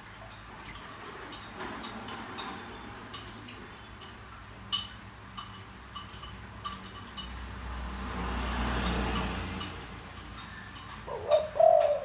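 Spotted dove giving a short, deep coo near the end, the loudest sound here. Scattered faint clicks run throughout, and a low rumbling noise swells up and dies away in the middle.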